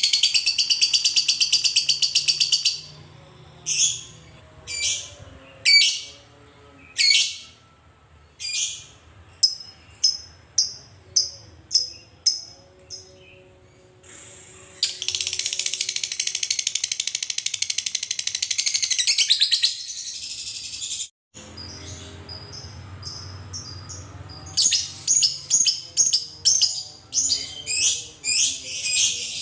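Fischer's lovebird calling: a long, rapid, high chattering trill (the 'ngekek'), then a string of single sharp chips about a second apart, then another long trill of about five seconds. After a brief dropout, it gives fast repeated chips near the end.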